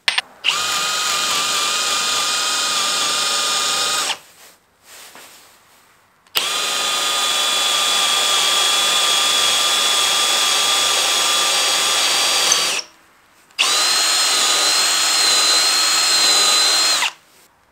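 Cordless drill driving a small bit straight through two clamped wooden blocks to bore a pilot hole. Its motor whines steadily at a constant speed in three runs: about four seconds, then about six and a half, then about three and a half, with short pauses between.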